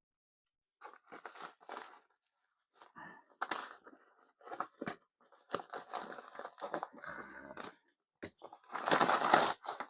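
A packaging bag being torn open and crinkled by hand, in irregular rustling bursts, the loudest near the end.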